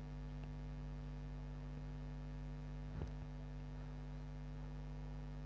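Steady low electrical mains hum with a faint hiss, and one soft faint tap about three seconds in.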